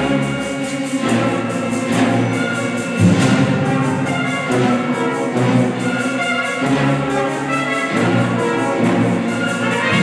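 Symphony orchestra with brass playing a film-score passage, full sustained chords that change about once a second.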